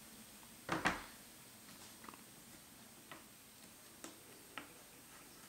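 A plastic dehydrator tray knocks down onto the counter once, sharply, about a second in. Then come a few faint, scattered light taps as raw potato slices are handled and laid on the other tray.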